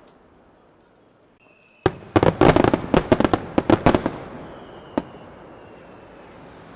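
Aerial firework shells bursting: a rapid cluster of sharp bangs starts about two seconds in and lasts about two seconds, then one last bang comes a second later, followed by a rumbling echo that fades.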